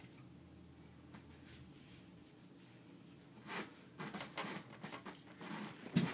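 Faint room tone. From about three and a half seconds in come rustling and handling noises close to the microphone, and a soft thump near the end as the person comes back to it.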